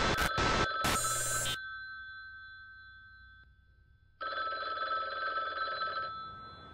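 A ringing tone, heard as two rings. The first is choppy at the start, stops about a second and a half in and dies away slowly. The second starts about four seconds in and lasts about two seconds.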